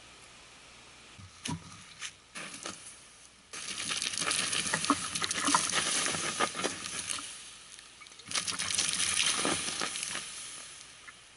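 Water poured onto a campfire's hot embers and ash, hissing and crackling as the fire is doused, in two pours with a short break between them. A few light knocks come first.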